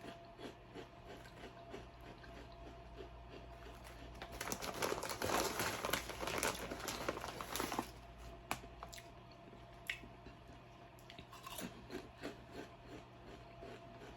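A person chewing crunchy potato chips close to the microphone, a steady run of small crunches. In the middle comes a louder, denser crackling for about three and a half seconds.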